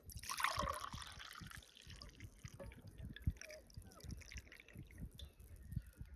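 A brief rush of splashing water that starts suddenly just after the beginning and fades over about a second and a half, with soft low thumps underneath.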